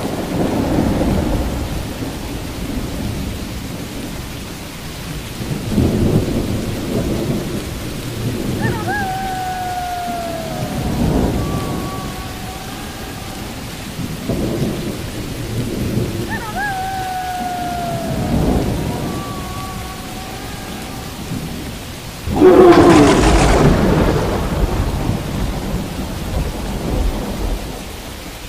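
Steady rain with rolling rumbles of thunder and one loud, sharp thunderclap late on. A drawn-out falling tone sounds twice in between.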